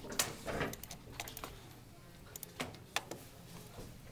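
Irregular sharp clicks from someone working a desktop computer's mouse and keyboard, a handful of them scattered through, over low room noise.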